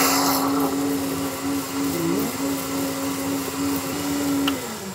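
Electric blender motor running with a steady whine, its pitch dipping briefly about two seconds in, then winding down and stopping near the end.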